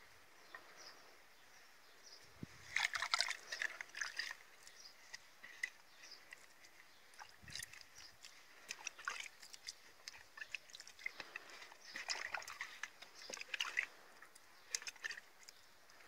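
Hands pressing and working loose soil and dry leaves around a newly planted sapling, making a rustling crackle in several short bouts.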